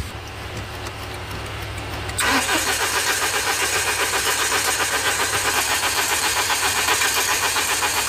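Mahindra Scorpio's mHawk four-cylinder diesel engine turning over on the starter and catching about two seconds in, then idling with a steady, fast, even clatter. This is its start after the timing chain has been replaced and the tappet rockers refitted.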